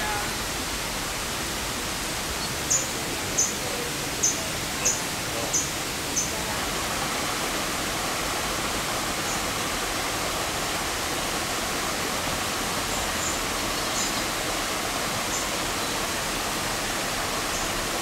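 Steady rushing of falling water from a waterfall. About three seconds in come six short high-pitched chirps, roughly two a second, and a few more are scattered later.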